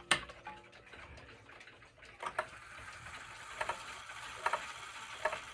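Alaron Korean 31-day wall clock's strike mechanism running with the silencer engaged: a sharp click just after the start, then from about two seconds in a run of clicks roughly once a second as the rack clicks up, with no gong strikes.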